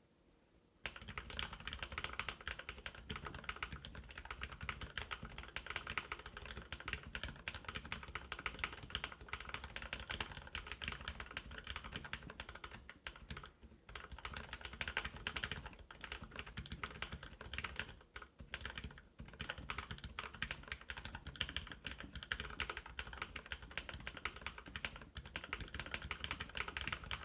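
Continuous typing on a Qisan Magicforce mechanical keyboard with very tactile hybrid switches (Novelkeys Blueberry stems and springs in Cherry housings, stems heavily lubed) under dye-sub PBT keycaps: a dense run of keystroke clicks starting about a second in. The typing pauses briefly twice, a little before halfway and again about two-thirds through.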